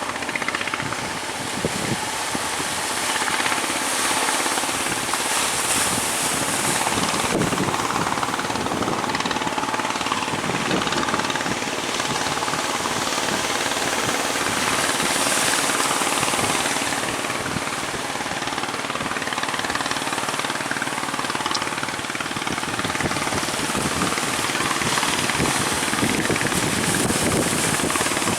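Fishing boat engine running steadily with a rapid pulsing beat, over a haze of wind and sea noise.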